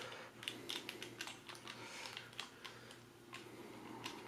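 Faint, irregular small clicks and ticks of a Phillips screwdriver working the screw on a plastic IEC power-cable connector to open its housing, over a low steady hum.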